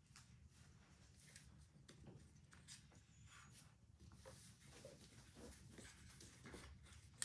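Faint, scattered scratching of oil pastels rubbed across paper as children colour, over a quiet room.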